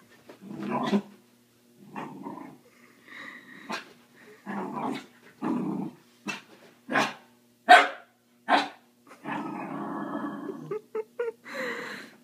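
A puppy barking and growling in play at its own reflection in a mirror: a string of short barks, with one longer growl a little past the middle.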